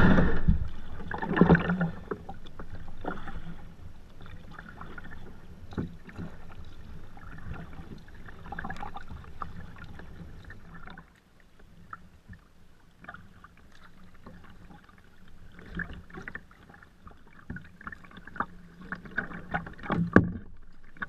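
Kayaks paddling on a river: paddle blades dipping and splashing and water lapping at the plastic hull, with occasional sharp knocks. It opens with a loud rush of noise that fades within about two seconds.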